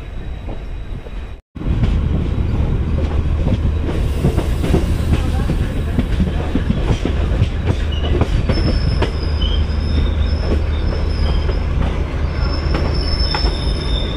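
Passenger train running through a junction, heard from the coach's open door: a steady heavy rumble with wheels clicking over rail joints and points. The sound cuts out for an instant about a second and a half in and comes back louder. From about eight seconds in, a high thin wheel squeal comes and goes.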